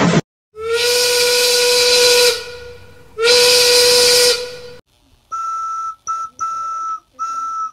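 Steam locomotive whistle: two long steady blasts with heavy steam hiss, the second shorter. Then a higher, thinner whistle sounds four short toots, one of them very brief.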